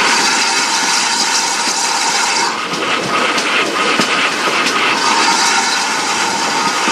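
GWR 4575-class 'Small Prairie' 2-6-2T steam locomotive running, heard from beside its cab. A loud steam hiss breaks off about two and a half seconds in and comes back about two seconds later, over steady running noise.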